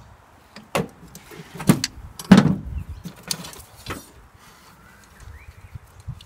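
Knocks and clatters from parts being pulled loose and handled under the dash of a 1966 VW Beetle being stripped. There are about five sharp knocks in the first four seconds, the loudest about two and a half seconds in, then only faint rustling and handling.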